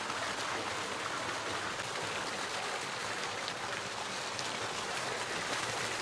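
Water pouring from a pipe into a concrete fish tank, a steady splashing rush. The inflow keeps the water moving to aerate the tank.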